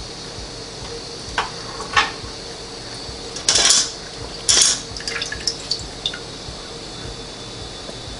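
Tongs clinking against an Instant Pot's stainless steel inner pot while beef ribs are lifted out of the cooking liquid, with wet splashing and dripping: a few light clicks, two louder wet bursts about three and a half and four and a half seconds in, then small taps.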